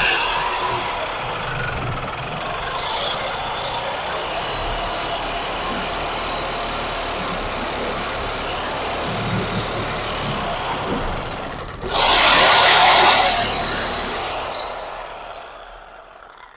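Corded reciprocating saw (Sawzall) cutting with an old, worn blade. Its motor whine rises and falls, a louder spell of cutting comes near the end, and then the saw winds down and fades.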